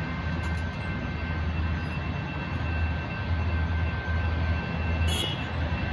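Several electronic grade-crossing bells ringing steadily over the low, pulsing rumble of a passing freight train. A short sharp click comes about five seconds in.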